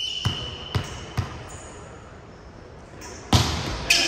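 A volleyball bouncing on a gym floor three times about half a second apart, then two loud hits near the end.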